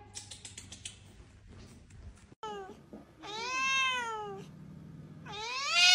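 Tabby cat meowing: a short call, then a long drawn-out meow that rises and falls in pitch, and another rising meow near the end.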